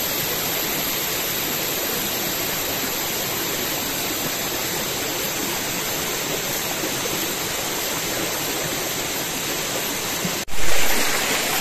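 Small rocky forest stream flowing steadily over stones, a constant even rush of water. Near the end the sound drops out for an instant and returns with a sudden low thump, the loudest moment, before the water noise settles again.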